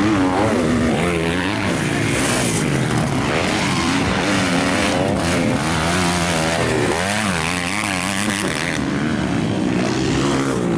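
Several motocross dirt bikes racing round a dirt track, their engines revving and easing off so that the pitch rises and falls again and again, with more than one engine heard at once.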